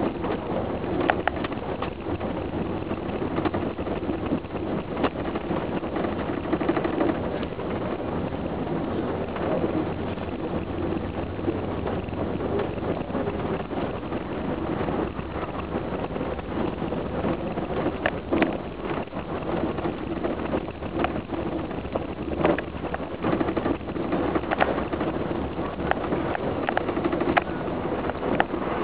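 Inside a moving vehicle: steady engine and road rumble, with occasional sharp clicks and rattles.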